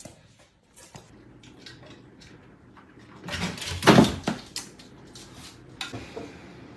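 Household knocks and clicks, with one loud clattering noise lasting about a second in the middle.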